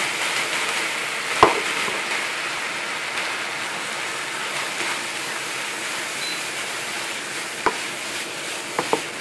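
Mashed-potato and pea samosa filling with coconut milk sizzling in a frying pan while being stirred, a steady hiss that eases slightly, with a few sharp knocks of the stirring utensil against the pan.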